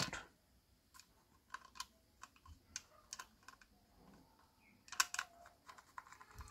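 Faint, scattered light clicks and taps from handling the black plastic base of a motorised display turntable, with a small cluster of clicks about five seconds in.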